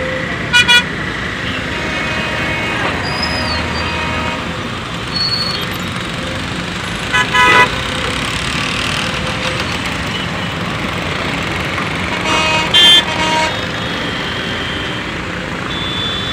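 Vehicle horns honk in short toots three times, near the start, about seven seconds in and around thirteen seconds, over a steady engine rumble.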